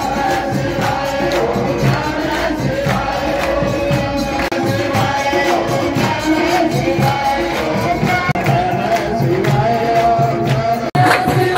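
A crowd of devotees singing a Hindu devotional kirtan chant together, kept to a steady beat by their hand claps.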